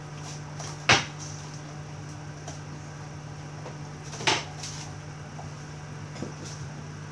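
Kitchenware being handled: two sharp knocks, about a second in and again past four seconds, and a few lighter clicks, over a steady low hum.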